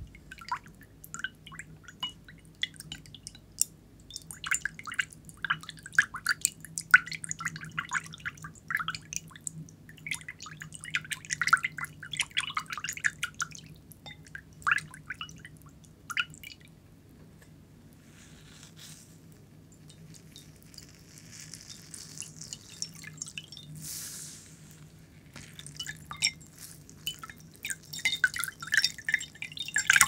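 Water dripping and splashing into a ceramic bowl in quick, irregular patters for about the first half, then a softer hissing wash, with a rush of drips again near the end as a kitchen sponge is pressed into the bowl.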